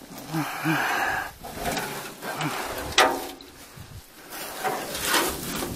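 Rustling through grass and brush while a sheet-metal mower guard is picked up and turned over by hand, with a sharp knock about three seconds in.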